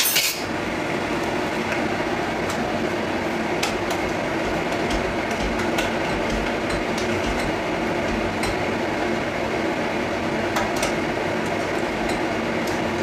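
Steady rushing noise from a pot cooking on the kitchen stove, with a few light clicks of utensils scattered through it.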